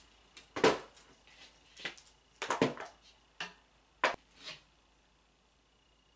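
Handling noise on a crafting table: about half a dozen short knocks and taps, irregularly spaced, as gingerbread-kit pieces and packaging are moved about. They stop after about four and a half seconds.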